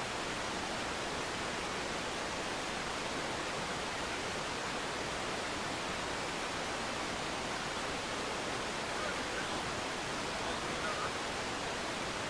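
Steady, even hiss of background noise with no rhythm or tones, and faint distant voices briefly near the end.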